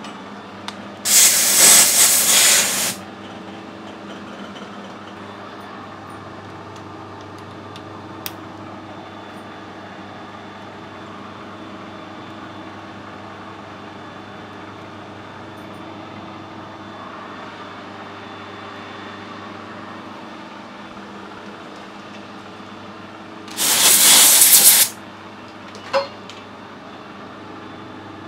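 Metal lathe running with a steady hum, broken twice by a loud hiss lasting a second or two, once about a second in and once near the end.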